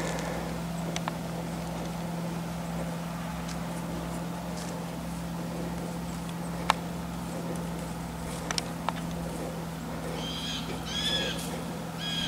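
A whitetail buck walking through dry grass and leaves, heard as a few scattered sharp snaps and ticks over a steady low hum. Near the end a bird gives several short chirping calls.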